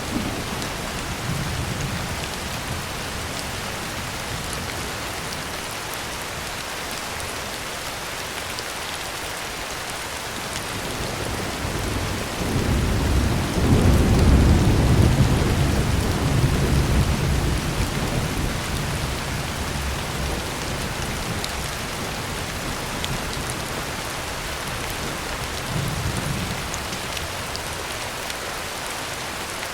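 Heavy rain falling steadily on a tin roof, with a long rumble of thunder that swells about twelve seconds in and dies away over several seconds; softer rumbles come near the start and near the end.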